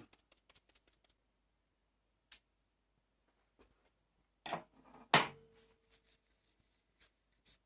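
A few faint clicks, then a knock and, half a second later, a sharp clack of hard objects set down, followed by a short ringing tone that dies away within about a second.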